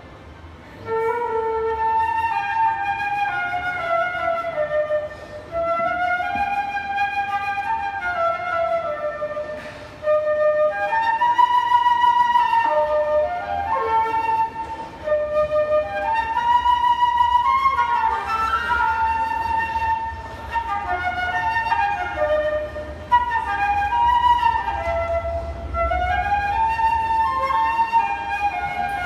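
Concert flute playing a melody alone, without keyboard accompaniment, in phrases with short breaks between them.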